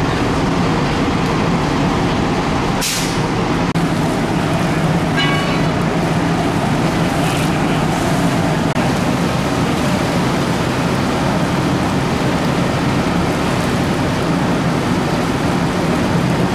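Fire apparatus diesel engine running steadily, a loud low drone with a haze of noise. There is a short sharp hiss about three seconds in and a brief high beep about five seconds in.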